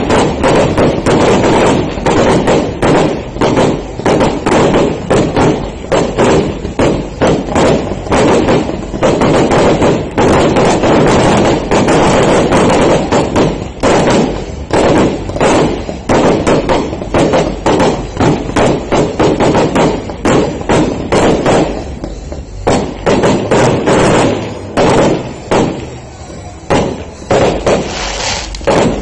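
Aerial fireworks bursting in rapid, near-continuous bangs and crackles. The barrage thins out about two-thirds of the way through, with brief lulls between bursts.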